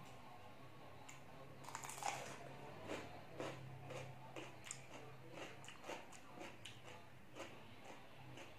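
Biting and chewing crisp raw cucumber: a run of small crunches, about two a second, starting about two seconds in.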